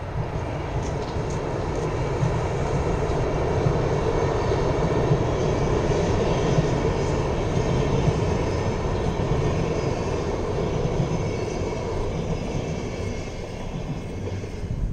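Double-decker InterCity passenger train rumbling across a steel truss railway bridge. The rumble grows louder over the first few seconds, holds steady, then eases off near the end as the train passes.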